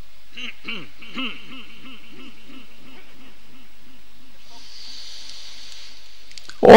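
A pause in a chanted Quran recitation, with faint voices from the listeners and a soft hiss. Near the end the reciter's voice comes back in loudly on a long, wavering chanted note.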